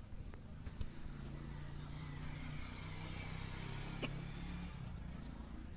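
A motor vehicle's engine running steadily, a low hum under a wide hiss. A few clicks come near the start, and one sharp click comes about four seconds in.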